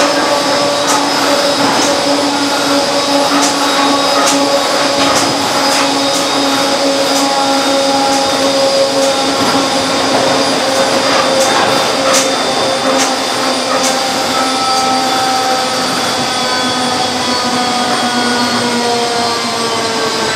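Z 6300 electric multiple unit heard from inside the passenger car while running: traction motor and gear whine in several steady tones that slowly fall in pitch as the train slows, most clearly near the end, over running noise with scattered clicks and rattles.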